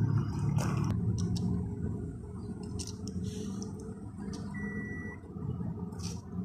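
Toyota Noah cabin with a steady low hum and a few sharp clicks as the push-button engine start/stop switch is pressed, and a single short electronic beep from the car about four and a half seconds in.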